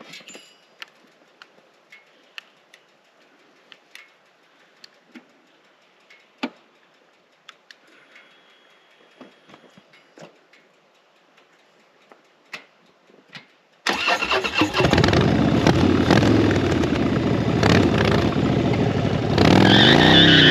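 Quiet light clicks and taps for about fourteen seconds, then a Harley-Davidson V-twin engine starts abruptly and runs loud and steady.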